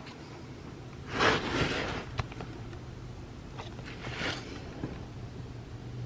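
A low steady hum, broken by a short rushing noise about a second in, a sharp click about two seconds in, and a smaller rush near the four-second mark.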